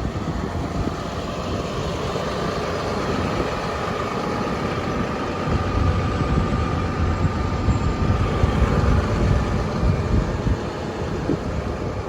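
Caterpillar 329E excavator's diesel engine running steadily at idle, a low rumble with a faint whine over it through the middle.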